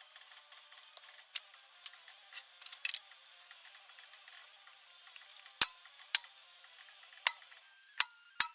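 Scattered sharp clicks and taps of hand tools and parts during guitar setup work: small ones at first, then about five loud, sharp clicks in the second half, over a steady hiss.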